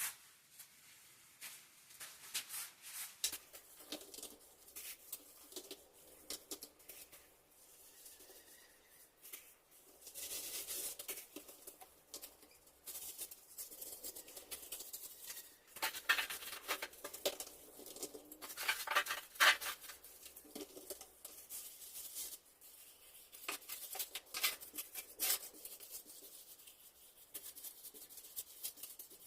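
Soft, irregular scrapes and pats of wet tinted mortar being packed and spread into a concrete countertop mould. A few stronger scrapes come about halfway through.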